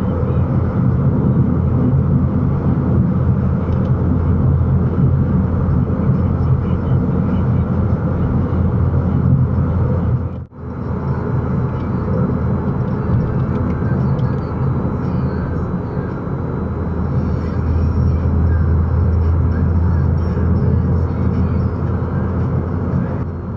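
Steady road noise inside a car cruising on a motorway at about 105–110 km/h, heard through the windscreen dashcam. It drops out for a moment about ten and a half seconds in, where one clip cuts to the next.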